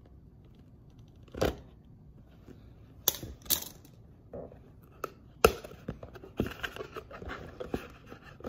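Cardboard Lego box being opened by hand: a few sharp snaps and scrapes spaced a second or two apart, then a quicker run of smaller crinkles and rustles near the end.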